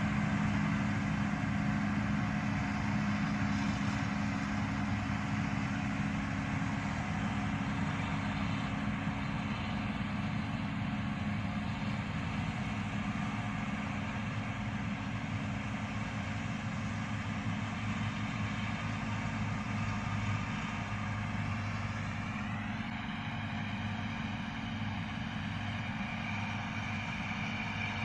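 Distant tractor engine running steadily under load while mowing grass, a low even hum that slowly fades as the tractor moves away, with a rising tone about three quarters of the way through.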